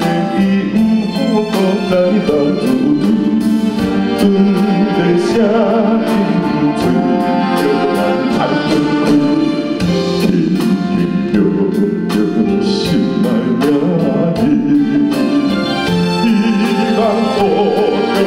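A deep bass male voice singing a Taiwanese ballad live into a microphone, over a band accompaniment.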